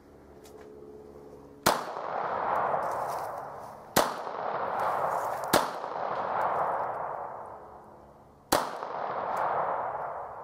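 Four pistol shots at uneven intervals, about 1.7, 4, 5.5 and 8.5 seconds in. Each is a sharp crack followed by an echo that rolls away over a second or two.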